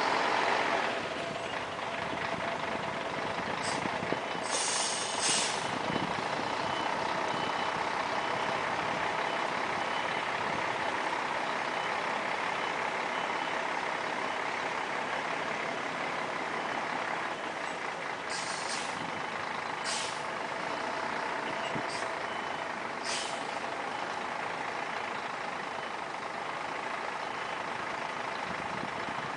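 Volvo B10M articulated bus's 340 hp electronically controlled diesel engine running steadily as the bus reverses slowly, with a reversing beeper sounding. Short hisses of released air from the air brakes come about four seconds in and then four times between about 18 and 23 seconds.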